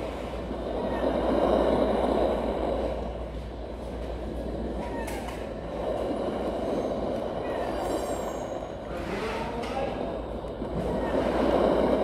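Built-in nature-sound track of a Timex T618T clock radio, sound 1, playing through its small speaker. A rushing noise swells and fades about three times, with faint short chirping glides above it.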